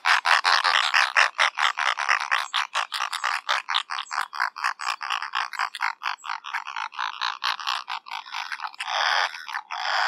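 Brown noddy calling: a fast rattling series of harsh, croaking notes, about seven a second at first, slowing and growing sparser. Near the end come two longer calls.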